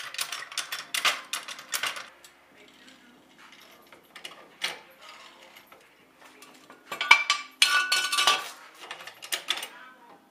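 Metal clinks and clanks from a steel floor jack, its handle and a steel jack stand as a car is let down off the stand. There is a run of clinks in the first two seconds, then a louder clatter with a brief metallic ring about seven to eight and a half seconds in.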